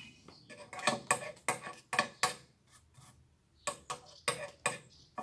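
Hard objects clacking against each other: a quick cluster of about five sharp clacks about a second in, then four more near the end.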